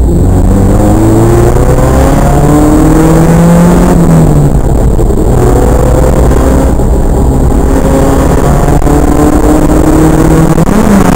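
Toyota AE86's stock 1.6-litre twin-cam four-cylinder (4A-GE) engine heard from inside the cabin, pulling hard with its pitch climbing, a short break in the climb about four seconds in, then rising slowly again. The recording is heavily distorted and clipped.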